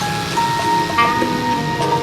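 Background music: several held notes at once, with a short gliding note about a second in.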